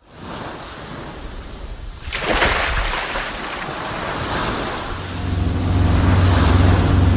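Wind on the microphone and water washing, with a louder rush of water about two seconds in, then a steady low hum that sets in about five seconds in.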